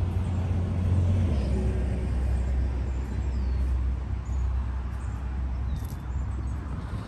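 Low, steady engine rumble of a nearby motor vehicle, dropping a little in pitch about a second in.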